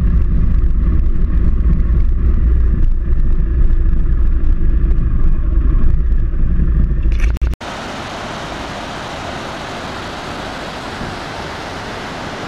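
Motorcycle on the move: engine and road sound with a deep, uneven rumble. About seven and a half seconds in it cuts off abruptly to a steady rushing hiss.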